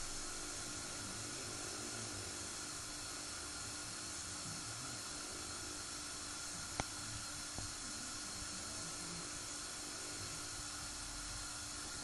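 Samsung WW80J5555FWEU washing machine on its delicates cycle, pausing between drum turns: a faint, steady hiss with a light hum, and one small click about seven seconds in.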